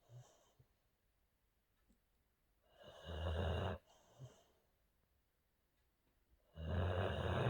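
Boxer dog snoring in its sleep: two snores about a second long each, some four seconds apart, each followed by a short faint puff.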